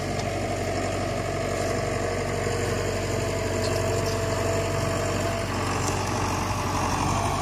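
An engine idling steadily with a low hum. A thin higher whine rides over it and fades out about five seconds in.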